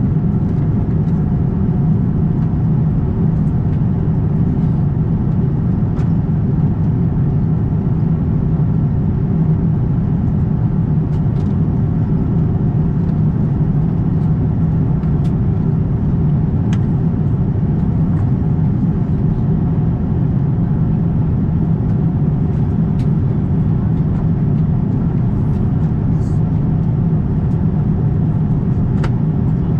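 Steady low drone of an Airbus A350-1000's cabin in flight, the noise of its Rolls-Royce Trent XWB-97 engines and the air rushing past the fuselage, heard from a window seat. A few faint ticks come through now and then.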